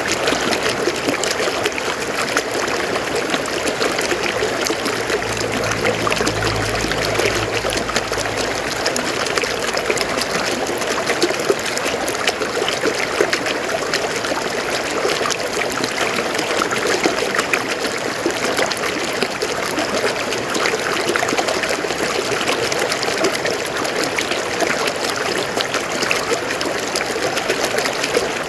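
River water flowing and trickling over rocks: a steady rush with many small splashes.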